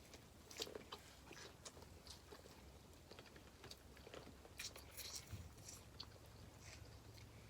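Faint chewing and mouth smacks from people eating a seafood boil, with scattered small clicks.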